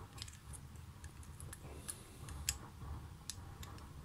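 Faint scattered clicks and ticks of small black plastic parts being worked in and out of the slots of a thin metal plate by hand, about six to eight light clicks over a low hum.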